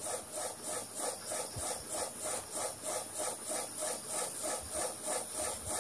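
Pen scratching on paper as figures and symbols are written, over an even background noise that swells and fades about four times a second.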